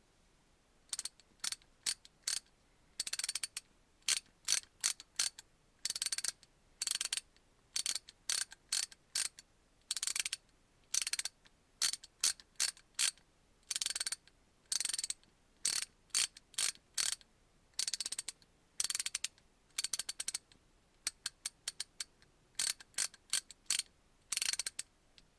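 Armstrong Tools 19-903 3/8-inch-drive ratchet with a 30-tooth gear, its pawl clicking over the teeth as the handle is swung back and forth. It goes in repeated bursts of rapid clicks, some short and some about a second long, with brief pauses between them.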